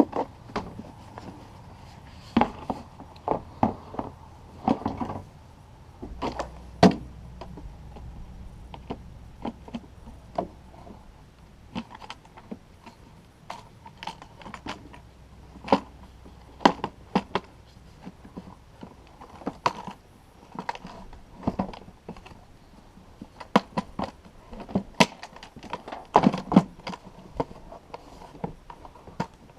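Irregular clicks and knocks of hard parts being handled and fitted while working on a truck's air filter housing, scattered throughout, with a faint low hum through the middle stretch.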